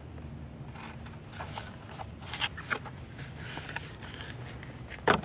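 Small clicks and scrapes of objects being handled, with one sharper, louder click about five seconds in, over a steady low hum.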